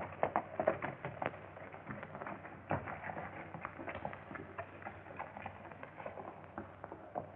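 Horses' hooves clattering in an irregular patter, loudest about the first second, then thinning out and fading.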